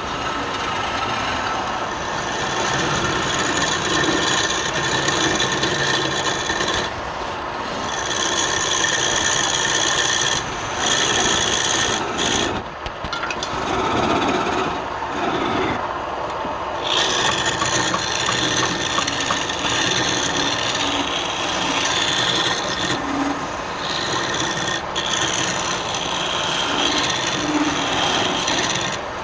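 Wood lathe running, with a tool scraping and rasping against the spinning wood, broken briefly about halfway through.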